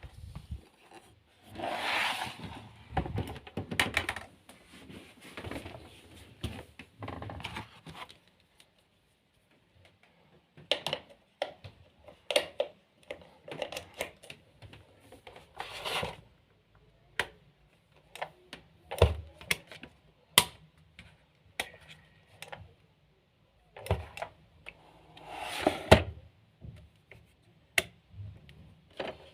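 Scattered handling noises: sharp clicks and knocks with a few bursts of rustling, with a quiet pause about a third of the way in.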